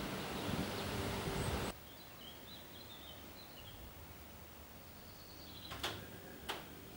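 Outdoor ambience of wind rustling and buffeting, with small birds chirping faintly. It cuts off abruptly about two seconds in to a quieter background where small birds keep twittering. Two sharp clicks come near the end.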